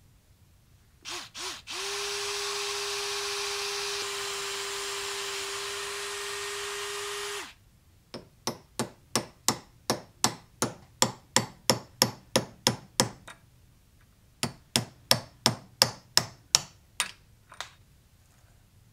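Electric drill blips twice, then runs steadily for about five and a half seconds, drilling out the old wooden handle stub in a cobbler's hammer's eye. Then comes a run of sharp metal blows on a punch, about three a second, driving the handle remnant out, a short pause, and a second run of blows.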